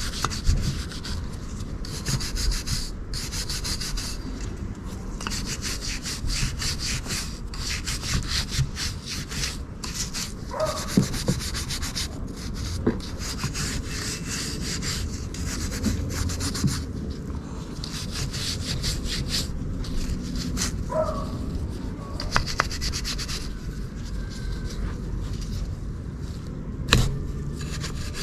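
Metal hood hinges being scrubbed clean with a brush, a dry rasping sound in runs of quick back-and-forth strokes with short pauses between them.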